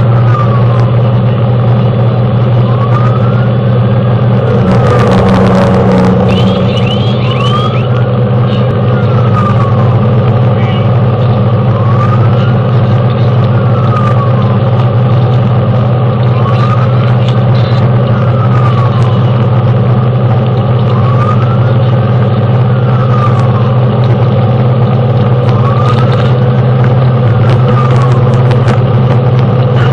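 Fire engine's wail siren rising and falling about every four and a half seconds over the steady drone of the engine, heard from inside the cab while running to a call. A brief loud burst comes about five seconds in.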